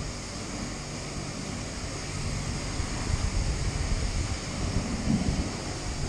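Wind rumbling and buffeting on the microphone, in uneven gusts.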